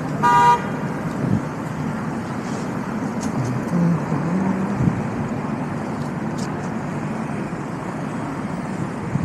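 Busy city street ambience: a steady hum of traffic and crowd. A short, loud horn beep sounds just after the start, and a voice is heard briefly about four seconds in.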